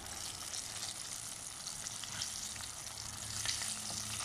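Flour-coated fish pieces sizzling as they shallow-fry in hot canola oil in a frying pan: a steady crackling hiss.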